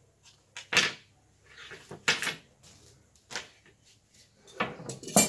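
A wooden yardstick and large metal tailor's scissors being picked up and set down on a cutting table: about five separate knocks and clatters, spaced roughly a second apart.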